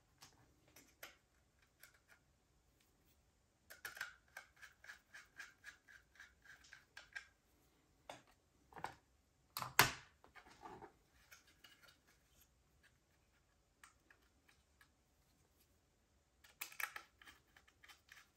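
Small screwdriver driving the mounting screws into the side of a 2.5-inch SSD in a laptop drive bracket: runs of light clicks at about four a second with scratching of metal on metal, and one sharper knock about ten seconds in.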